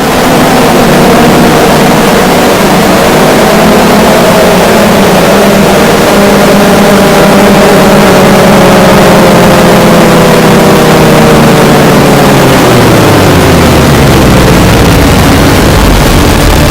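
Extremely loud, blown-out noise of 'ear rape' meme audio, with a droning pitched tone in it that slides down in pitch about three-quarters of the way through.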